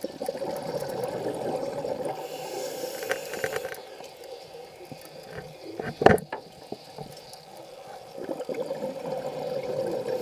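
Scuba diver's exhaled bubbles streaming from the regulator for the first few seconds and again near the end, quieter in between during the inhale. One sharp knock just past the middle is the loudest sound.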